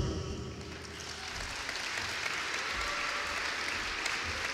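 Audience applauding: many hands clapping together, swelling about a second in and then holding steady.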